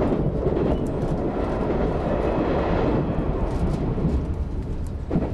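JR 381 series limited-express electric train running at speed, heard from the front observation seat: a steady, dense rumble of wheels on rail as it runs out of a tunnel into the open, the noise thinning a little about three seconds in.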